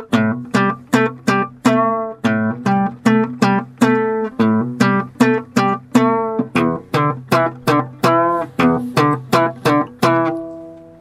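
Plucked string instrument played in a steady repeating rhythm, about three plucks a second over a sustained low drone, some notes bending in pitch; it fades out near the end.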